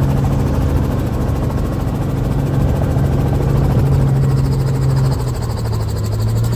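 Helicopter engine and rotor running, heard from inside the cabin: a loud, steady low hum that steps down slightly in pitch about five seconds in.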